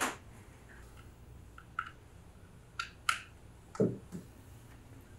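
Handling noise: a sharp click at the start, a few lighter clicks around two to three seconds in, and a dull thud about four seconds in.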